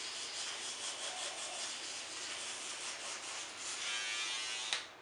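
A toothbrush scrubbing teeth: steady rough brushing that stops just before the end.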